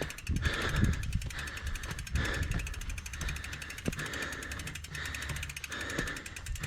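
A mountain bike's rear freehub ticking fast and evenly as the bike is pushed uphill, a loud hub that its rider wants to swap for a quieter one. Heavy huffing breaths come in irregular swells under the ticking.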